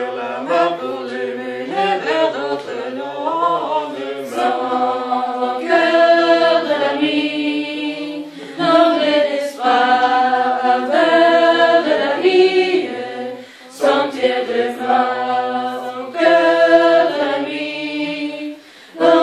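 A small mixed choir of young men and women singing a slow song together a cappella, in long held phrases with short breaks for breath.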